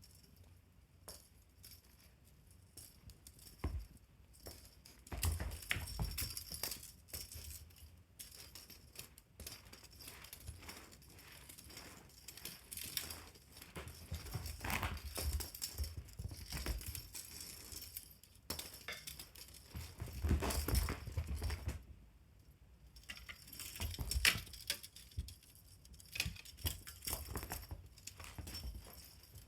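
Pets playing with a fishing-rod toy: irregular rattling, clinking and rustling of the toy, with dull thumps now and then as the animals pounce and land.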